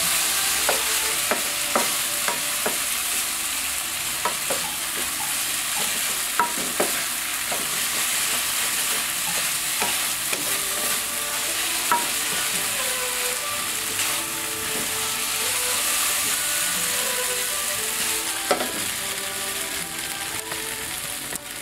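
Rice noodles and bok choy sizzling in a hot nonstick wok, with a steady hiss. They are being stir-fried with a wooden spatula that knocks against the pan now and then, frying the noodles to crisp them.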